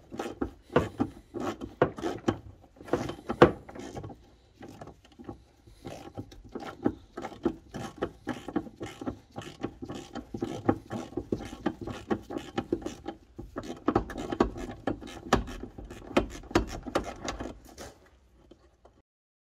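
Hand tools working on the car's underside: a long run of quick, irregular metallic clicks and taps. The sound stops abruptly shortly before the end.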